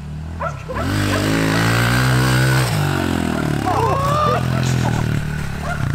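Pit bike engine revving up, its pitch climbing for about two seconds and then falling away over the next two. A short shout rises over it about four seconds in.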